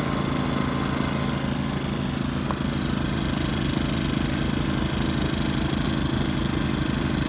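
Small gas-powered portable inverter generator running steadily, its engine note pulsing with an even, fast beat.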